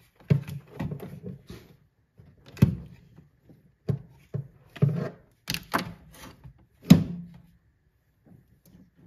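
Irregular knocks and clunks of hands working in a car's stripped metal dashboard: a plastic tube work light being moved and set down, and loose wiring being pulled. The loudest knock comes about seven seconds in.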